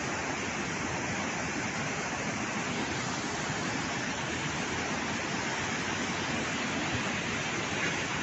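A river in flood rushing past, a steady, even rush of water.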